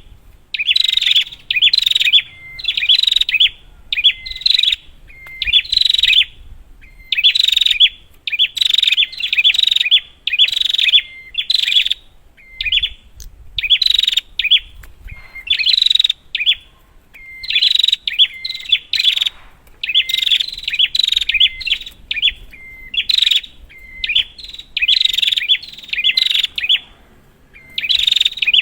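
Prinia (prenjak) calling: loud, rapid bouts of sharp chirps, each about half a second long, repeated roughly once a second with short pauses between, played as a lure to set a silent caged prenjak calling.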